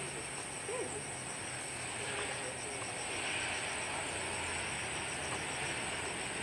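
Low steady hum of a Wings Air ATR 72-500's turboprop engines as it rolls out after touchdown, heard faintly under a steady high insect buzz with a fast pulsing chirp.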